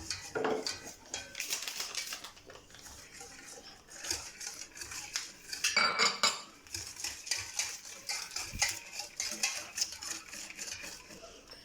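A metal spoon clinking and scraping against cookware in irregular taps as sugar is spooned into the cream mixture and stirred, with a louder cluster of clinks about halfway through.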